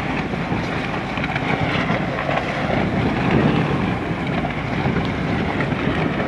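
Wind rushing across the microphone over choppy sea water, a steady noise with no distinct event.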